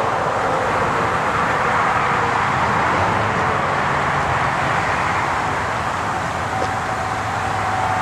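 Steady rolling noise of a freight train's autorack cars passing by, with a faint steady whine coming in near the end.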